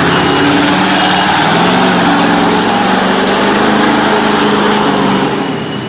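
BIGFOOT #6 monster truck's engine running hard, its pitch climbing about a second and a half in, holding, then easing off near the end.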